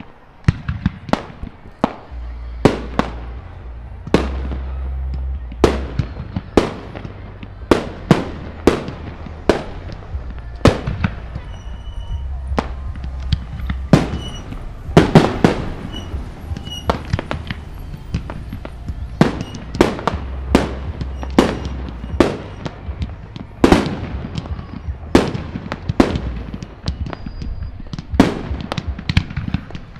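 Aerial fireworks display: shells burst in a rapid, uneven series of loud bangs, more than one a second, over a steady low rumble.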